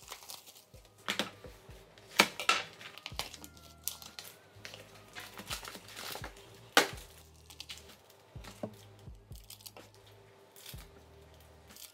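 A box of trading-card packs being opened by hand: cardboard and pack wrappers tearing and crinkling, with a few sharp rips.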